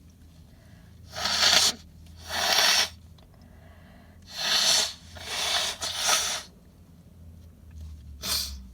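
Six short, forceful bursts of air expelled through a person's nose, each about half a second long, with the last one shorter and quieter.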